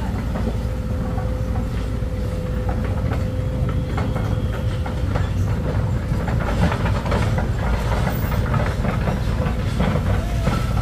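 A large engine running steadily, with frequent metallic clanks and rattles that grow busier after the first few seconds and a faint steady whine over the first half.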